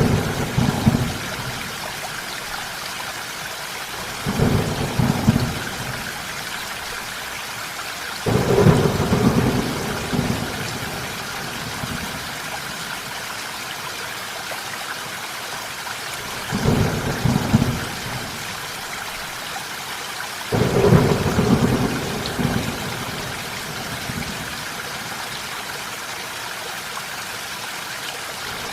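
Steady rain with short, low rumbles of thunder, five of them, each lasting a second or two.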